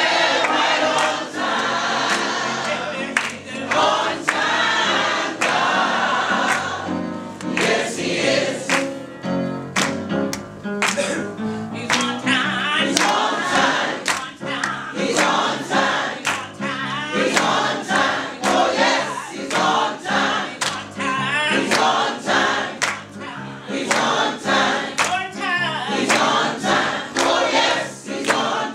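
Gospel choir singing, with about two sharp beats a second keeping time.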